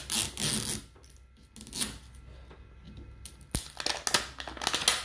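Plastic wrapping crinkling and tearing as it is peeled by hand off an L.O.L. Surprise ball, in several short bursts, with a sharp click about three and a half seconds in.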